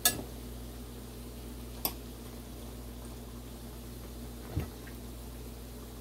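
Festival dough frying in hot oil in a skillet, a steady low sizzle, with a few light clicks and a soft knock near the end as a metal fork touches the plate of fried festivals.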